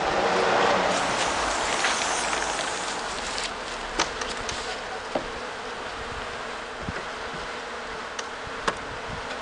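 Honeybees buzzing steadily around an opened wooden hive, loudest in the first two seconds. A few sharp clicks and knocks as the wooden hive frames are handled.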